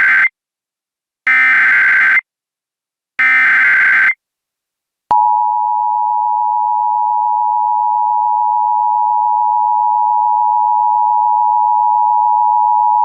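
Emergency Alert System tones: the end of one SAME header data burst, then two more digital data bursts, each about a second long and about two seconds apart. About five seconds in, the steady two-tone EAS attention signal starts and holds for about eight seconds.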